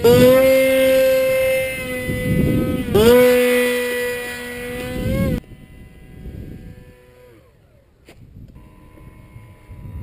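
Motor and propeller of a radio-controlled Su-37 model plane whining at a steady high pitch, dipping and picking up again about three seconds in, then cutting off abruptly. After that a much fainter whine falls in pitch, with one brief click.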